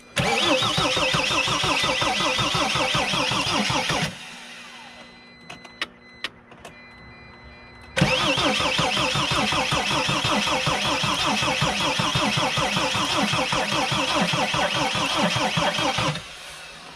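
Mercedes Sprinter diesel engine turning over on the starter without catching, in two bursts: about four seconds, then a pause, then about eight seconds. The owner puts the no-start down to air in the fuel, with bubbles at the injector and a broken plastic fuel line.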